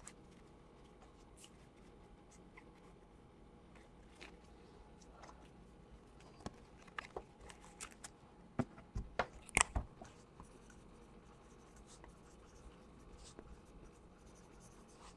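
Quiet handling of trading cards and a marker pen: soft rustles and scratches, with a cluster of small clicks and taps a little past halfway.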